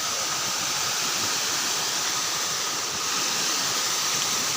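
Waterfall: a steady rush of falling water, with a faint steady high tone running through it.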